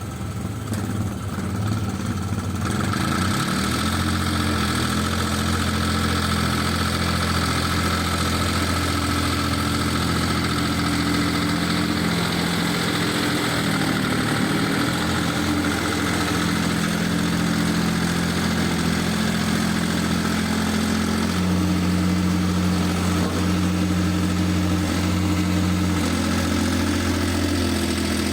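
Diesel engine of a 2.5-ton mini excavator running steadily, its speed stepping up about two and a half seconds in and shifting up and down a few more times later.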